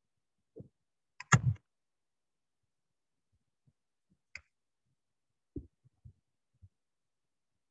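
A few short clicks and soft bumps. The loudest is a sharp click with a knock about a second and a half in, another click comes near the middle, and several faint thumps follow.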